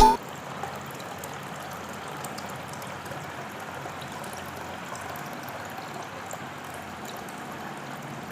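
Small pump-fed cement water fountain running, water trickling and splashing steadily.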